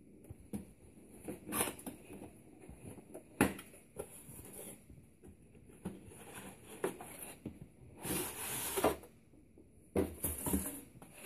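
Cardboard router box being handled and opened by hand: irregular scrapes, taps and rustles of cardboard, with a sharp knock about three and a half seconds in. A longer rustle of cardboard, pulp tray and plastic wrapping comes near eight seconds in as the contents are slid out.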